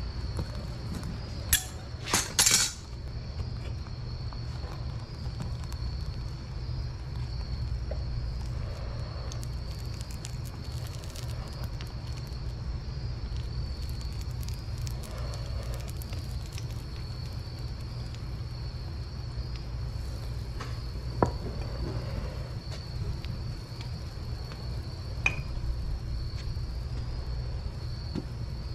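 Gas burner of a small metal-melting furnace running with a steady low rumble, under a steady high trill of crickets. Sharp metallic clinks of tongs against the crucible and furnace come about two seconds in, with a single clink later on.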